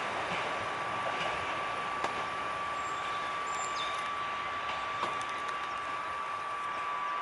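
Train pulling away into the distance: a steady faint rumble and hiss with a thin steady whine, and a few light clicks.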